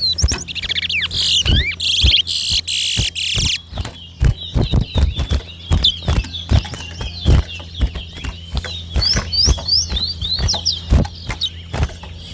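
Caged towa towa (chestnut-bellied seed finch) singing during a song race: a dense, high run of song about two seconds in, then scattered chirps and quick up-slurred whistles, with many sharp clicks throughout and a steady low hum underneath.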